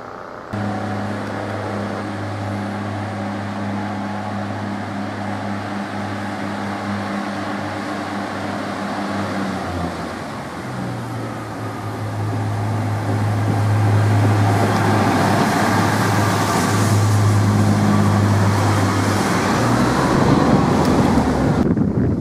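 Class 144 Pacer diesel multiple unit's underfloor diesel engine running with a steady low hum as the unit pulls into the platform. The engine note steps up about halfway through. The sound then grows louder, with wheel and rail noise, as the unit draws close.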